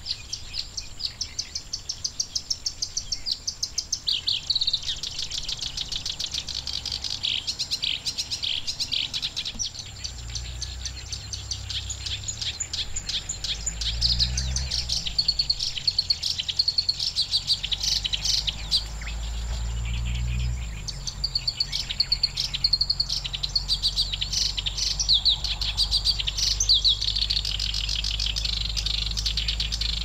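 Black-browed reed warbler singing: a long, nearly unbroken run of short, rapid high notes, several a second, repeated over and over. A low rumble sits underneath from about ten seconds in, swelling twice.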